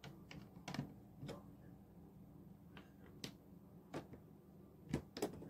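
Plastic LEGO bricks clicking and tapping as pieces are handled, set down and pressed together: faint, sharp clicks at an uneven pace, about eight in all.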